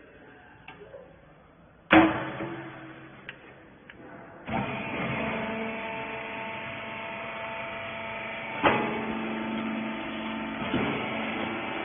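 A loud metal knock about two seconds in, then the rag baler's hydraulic power unit starts about four and a half seconds in and runs steadily with a hum of several fixed tones, with a couple more sharp knocks over it.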